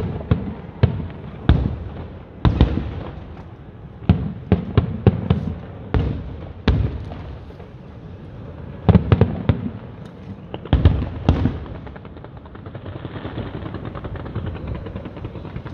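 Fireworks show: aerial shells bursting in irregular loud bangs, some in quick clusters, each with an echoing tail. In the last few seconds the bangs give way to a steadier crackling.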